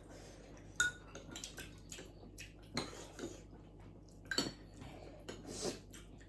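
Cutlery clinking and scraping against bowls and plates while eating: scattered taps and scrapes, the sharpest clink, with a short ring, about a second in.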